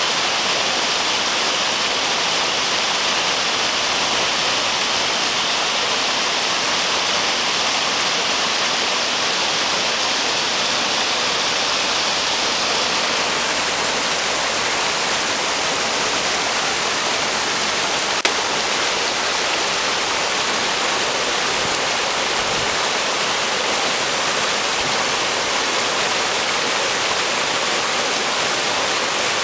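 Rocky creek rushing and splashing over boulders in small rapids: a steady, even rush of whitewater, its tone changing slightly about halfway through.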